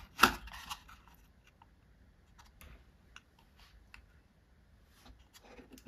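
Small metal parts being handled and set in place: a sharp click just after the start, then scattered light ticks as an aluminium pulley and gear are fitted by hand.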